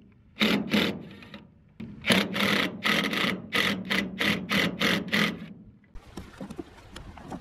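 DeWalt 20V cordless driver backing screws out of a truck's fuel filler neck. Its motor whirs in short trigger bursts: once near the start, then about three a second from about two seconds in until just before six seconds, with faint handling noise after.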